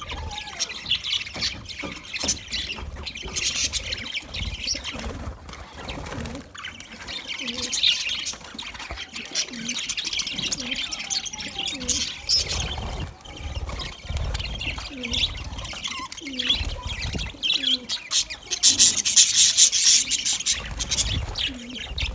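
A flock of budgerigars chirping and warbling continuously in many overlapping short calls, getting loudest in a burst of chatter about three quarters of the way through.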